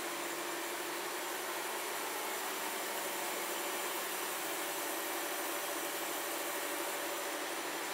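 Steady hum and hiss of a powered-up Takisawa TMM-250 twin-spindle CNC lathe, with a few faint steady tones in it.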